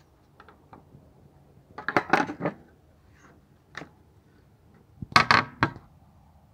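Hard clicks and clattering of a cased tablet being fitted against its mount, in two bursts of several quick knocks about three seconds apart, with a single click between them.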